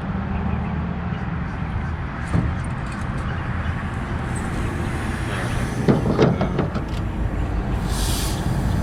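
Tire-plug reamer being worked back and forth in a tire puncture, rasping in short strokes about six seconds in, over a steady low engine hum, with a click about two seconds in and a short hiss near the end.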